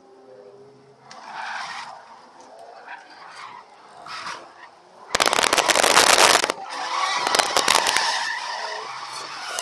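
Ford AU Falcon sliding through a drift, heard from inside the cabin: the engine running and tyres skidding. A loud harsh crackling noise breaks in twice, about five and seven seconds in.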